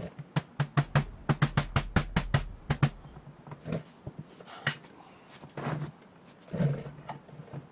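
A small hammer tapping quickly on the steel crankshaft of a Predator 212 engine, about fifteen sharp taps over two and a half seconds. This is the new timing key being driven into its keyway. It is followed by a few scattered knocks as parts are handled.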